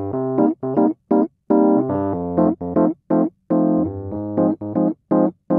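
End-card music: a keyboard plays short, detached chords in a bouncy rhythm, with brief silences between them.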